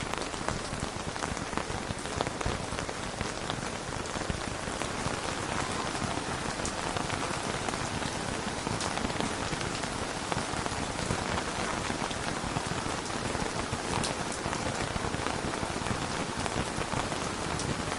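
Rain falling on a tent: a steady, dense patter of drops on the fabric, with a few sharper single drop hits standing out now and then.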